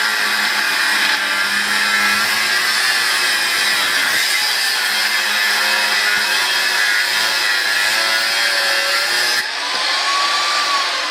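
Old Black & Decker angle grinder with a thin 1 mm cut-off disc, cutting through metal bar stock with a steady, loud grinding screech. Near the end the cut finishes abruptly, leaving only the motor's whine as it winds down.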